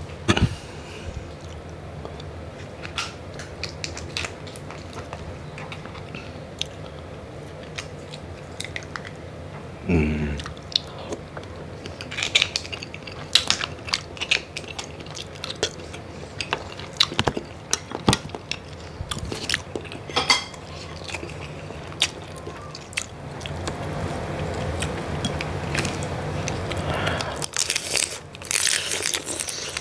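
Close-up eating sounds of a cooked mud crab: a spoon clicking and scraping against the shell, then chewing and crunching on crab, with many scattered sharp clicks.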